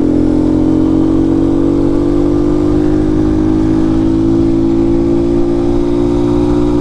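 The 127cc single-cylinder four-stroke engine (a 154FMI Honda copy) of a Chinese sportbike pulling in gear under load, its note rising slowly and steadily as the bike accelerates.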